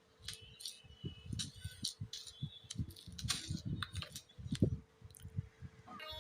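Irregular light taps and clicks of fingers handling and tapping a smartphone. Right at the end, a song starts playing from the phone's speaker.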